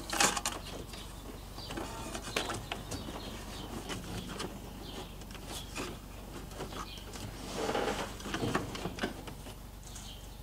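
Hard plastic car interior trim clicking and knocking as it is handled and fitted around the center dash by hand: scattered small clicks, with a busier stretch of clicks and rustling about eight seconds in.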